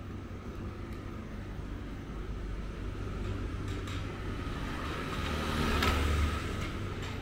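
A car passing close by: its noise builds, peaks about six seconds in, then falls away, over a steady low street hum.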